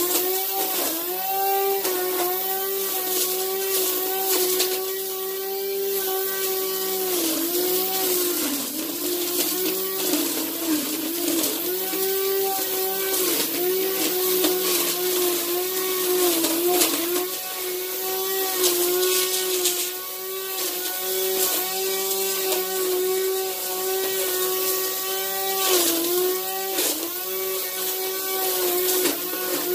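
Krisbow electric string trimmer running with a steady whine, its pitch dipping briefly again and again and then recovering: the nylon line is biting into the grass and cutting it.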